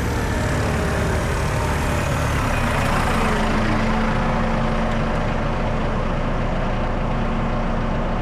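FPV drone's motors and propellers whirring steadily, with a few pitch glides as the throttle changes.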